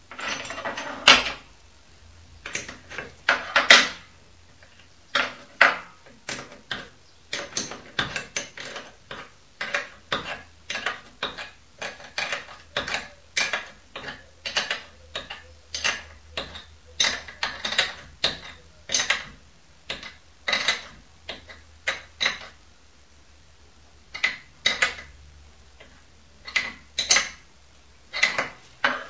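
Metal hand tool clinking and clicking against the steel parts of a mini lathe during leveling work: a long run of short, sharp metallic clicks about once or twice a second, louder in the first few seconds, with a brief pause near the end.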